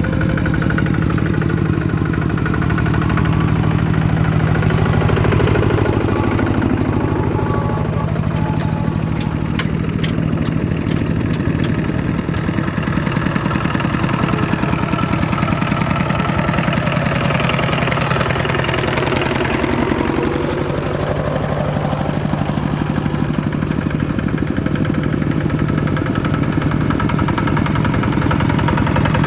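Tractor diesel engine running steadily, with a knocking clatter. The engine note rises and eases twice as the load or throttle changes.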